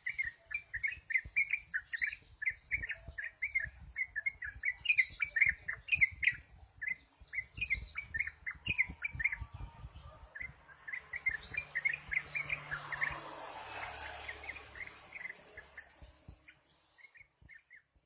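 Yellow-vented bulbul (trucukan) singing a long run of quick, repeated chirpy notes in the rapid 'ropel' style prized by songbird keepers. From about the middle, a rustling hiss and a fast high buzz swell up for a few seconds, then the song thins out near the end.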